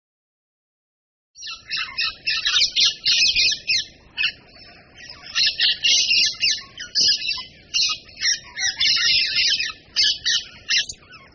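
Bird song recording: a bird chirping and warbling in quick runs of short high notes, starting after about a second and a half of silence and going on almost to the end.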